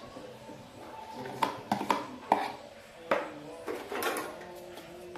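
A metal fork knocking and scraping against a plastic tub and a metal mixing bowl as soft butter and margarine are scraped out: a handful of sharp clicks, about six in all, clustered between one and a half and four seconds in.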